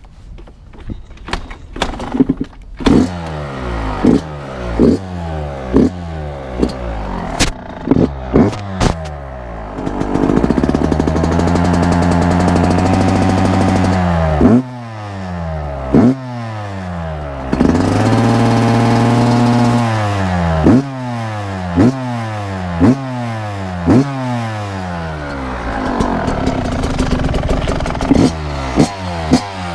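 2019 Yamaha YZ125's single-cylinder two-stroke engine on its stock exhaust, brand new, starting about two seconds in after a few clicks. It is then revved in repeated short throttle blips, about one a second, with the pitch falling after each, and held at steady higher revs twice for a few seconds.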